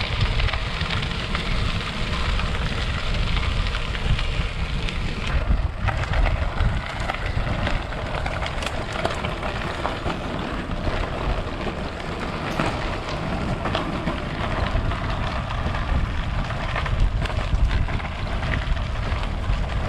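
Wind buffeting the microphone while riding a gravel bike, with a fine crackle of tyres rolling over gravel.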